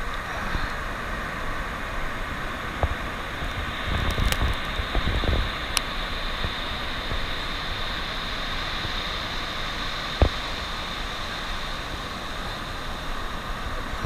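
Steady hiss of ocean surf with wind buffeting the microphone, gusting about four to five seconds in, and a single sharp knock about ten seconds in.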